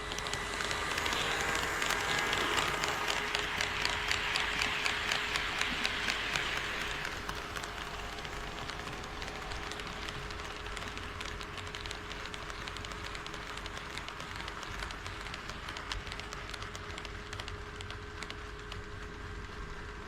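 HO-scale model train running on KATO Unitrack, a quick run of fine clicks from the wheels over the track joints with a steady motor hum. It is louder for the first several seconds, then settles quieter.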